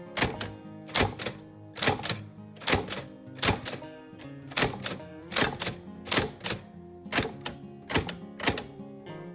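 Old manual typewriter keys striking in a slow, fairly even rhythm, often two strokes close together, over soft background music. The keystrokes stop shortly before the end.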